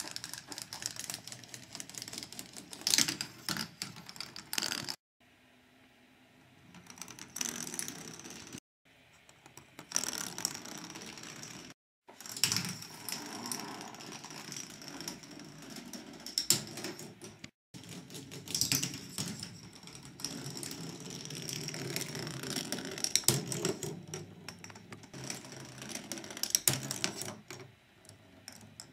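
K'nex ball machine running: a dense clicking and rattling of plastic balls and parts moving through the machine. The sound breaks off abruptly several times.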